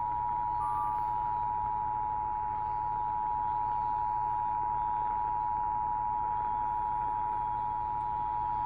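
Emergency Alert System attention signal: two steady tones sounding together (the standard 853 Hz and 960 Hz pair), held unbroken, announcing a tornado warning over the broadcast.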